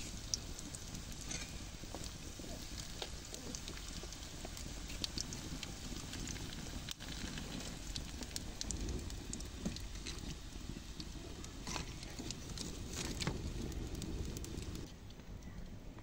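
Food frying in hot oil in a wide pan over an open wood fire: a steady sizzle scattered with sharp crackles and pops. The sizzle drops away near the end, leaving a duller sound.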